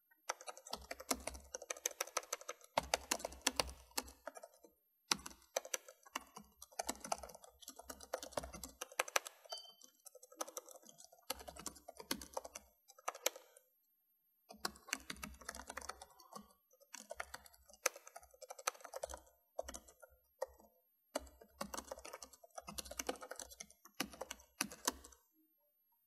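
Fast typing on a computer keyboard: runs of rapid keystrokes broken by short pauses, the longest about halfway through. The typing stops about a second before the end.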